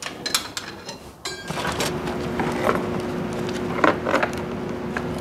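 Small clicks and knocks of metal tools and parts being handled, with a quick rattle of ticks. About a second and a half in, a steady mechanical hum starts and carries on, with a few more taps over it.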